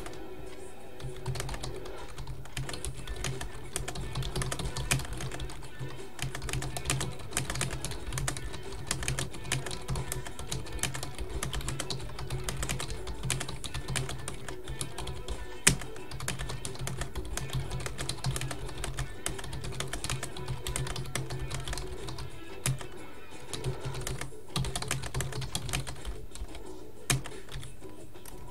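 Typing on a computer keyboard, short irregular clicks in quick runs, with music playing quietly underneath.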